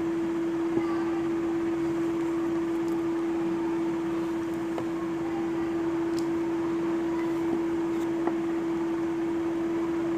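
A steady, even hum at one constant pitch, with a few faint clicks and knocks as a ring light's tripod stand is handled and fitted together.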